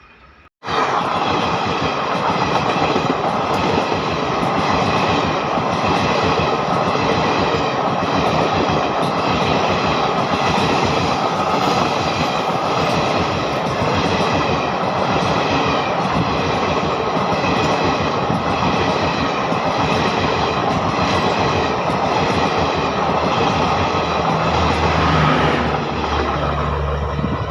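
Train running past close by: a loud, steady rolling noise of wheels on rails that starts abruptly about half a second in and eases off near the end, with a low hum coming in shortly before it fades.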